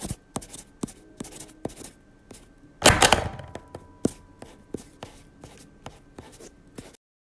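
Pens working on paper over a hard desk: a quick, irregular run of taps and knocks, with a louder clatter of several knocks about three seconds in. The sound cuts off suddenly about a second before the end.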